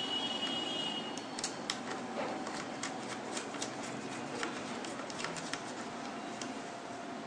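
Scattered small clicks and taps of a screwdriver and screws as the laptop display's screws are fitted, over a steady background hiss. A faint high whine stops about a second in.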